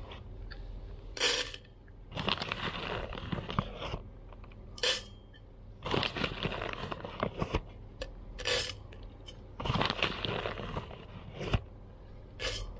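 A kraft paper bag crinkling as a hand digs into it and scoops out green coffee beans, with the hard beans rattling and clattering against each other. It comes in irregular bursts, about eight in all.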